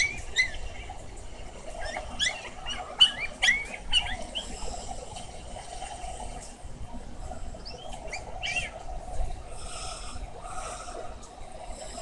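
Puppies whimpering and yelping in short high-pitched squeals, a cluster in the first few seconds and a few more near the two-thirds mark, over a steady hiss, played back from a video through computer speakers.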